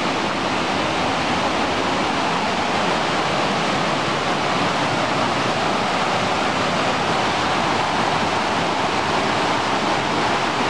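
Rocky mountain stream rushing over boulders in small cascades: a steady, even rush of water.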